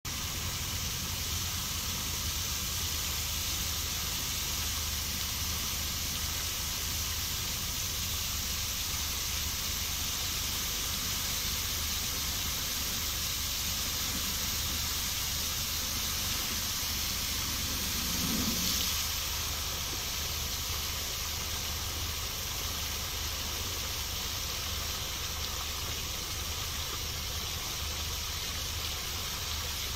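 Fountain's tall central water jet and arcing side jets falling into the basin: a steady rush of splashing water with a low rumble underneath, briefly swelling about two-thirds of the way through.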